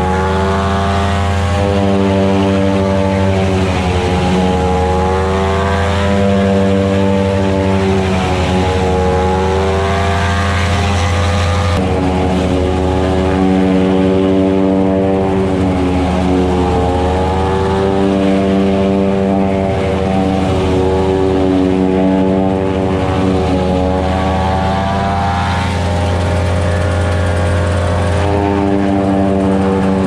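A silage cutter and the engine driving it, running steadily while green corn stalks are fed in. The engine's drone sags in pitch and recovers several times as it takes load. There is an abrupt change in the sound about twelve seconds in.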